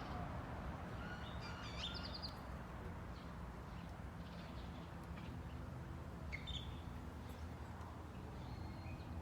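A few short bird chirps, the clearest about a second and a half in and another just past six seconds, over a faint steady low outdoor background noise.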